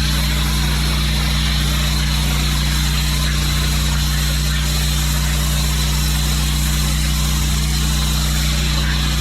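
Pressure washer's engine running steadily under a continuous hiss of the water jet spraying.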